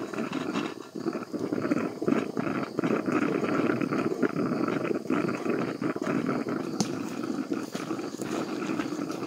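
Stovetop percolator coffee pot at the boil on a camp stove, bubbling and gurgling steadily while steam comes from its spout, with a campfire crackling in sharp snaps.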